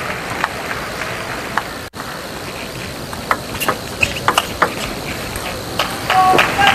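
Table tennis rally: a celluloid-type ball clicking sharply off the bats and table several times a second, over the hum of a large arena hall. Near the end the hall noise swells briefly as the crowd reacts.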